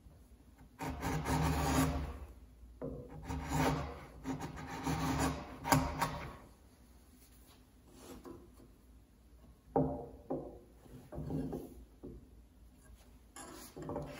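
A framing chisel paring the walls of a mortise in a timber beam: steel scraping along wood in three long pushed strokes, then a sharp click a little before halfway, and a few shorter, fainter scrapes later on.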